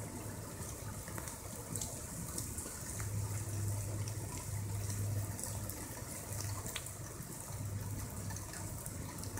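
Steady hiss of rain on wet pavement and grass, with scattered light ticks and a low rumble that comes and goes.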